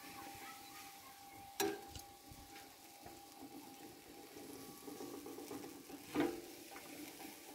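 Whole sheep roasting on a spit over charcoal: faint sizzling of fat on the embers, with two sharp cracks, one about a second and a half in and one about six seconds in.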